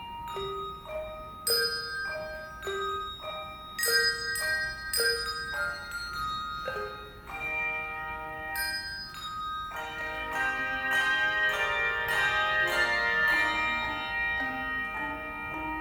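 Handbell choir ringing a slow melody, single struck bell notes that ring on, filling out about two-thirds of the way through into fuller, louder ringing chords.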